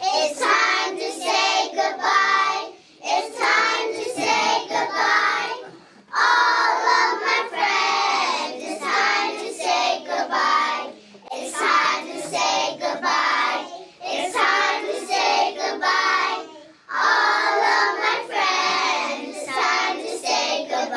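A group of young children singing a song together in short phrases with brief pauses between them.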